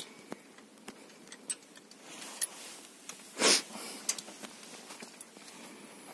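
Handling noises of an electric drill and cylinder hone in an engine bay: scattered light clicks and knocks, with one short, loud burst of noise about three and a half seconds in. The drill motor is not running.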